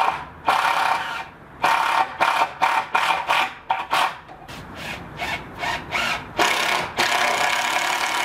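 Power drill driving screws into wooden pergola beams, in a series of stop-start trigger bursts, short at first and a longer run near the end.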